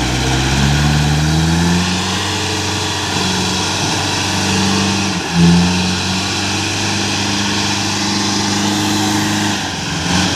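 Small six-wheel truck's engine pulling, rising in pitch over the first two seconds, then holding steady. Its pitch dips and picks up again briefly about five seconds in and again near the end.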